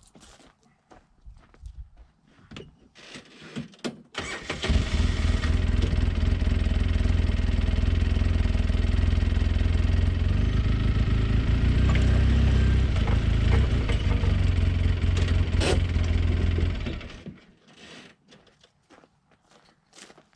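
A small gasoline engine starts about four seconds in, runs at a steady idle for about thirteen seconds, then is shut off; handling clicks and knocks come before and after.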